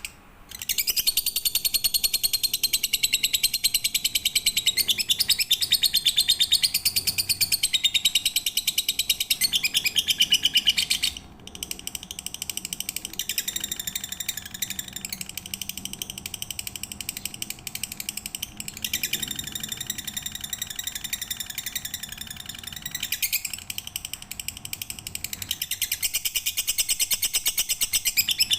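Lovebird singing long, very fast, high-pitched chattering trills in an unbroken stream. The first phrase runs about ten seconds, then after a brief break a little past the middle the trilling starts again in further long phrases.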